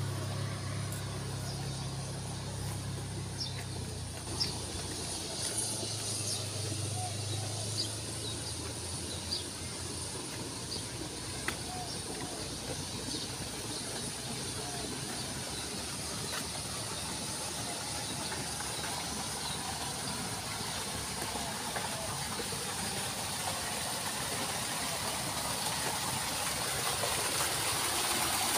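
Steady outdoor hiss with a low engine hum underneath for the first ten seconds or so, and a few faint ticks. Near the end the rush of water in a small irrigation channel grows louder as it pours over a drop.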